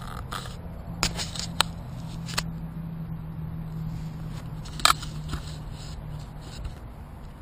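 Dry reed stems and brush scraping and crackling against a handheld camera, giving a few sharp clicks, the loudest a little before five seconds in, over a low steady hum.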